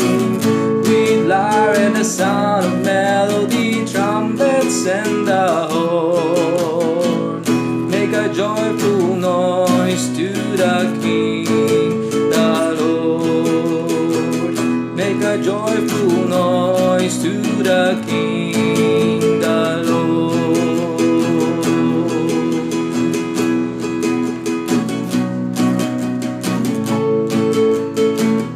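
Acoustic guitar strummed in a steady rhythm, with a wavering melody line sounding above it at times.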